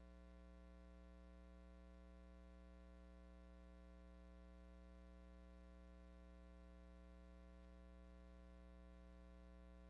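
Near silence with a faint, steady electrical hum and its overtones.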